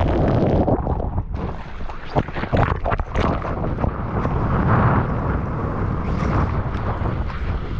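Rushing surf and spray splashing against a GoPro's housing as the surfer takes off and drops down a breaking wave, with many sharp splashes and wind buffeting the microphone.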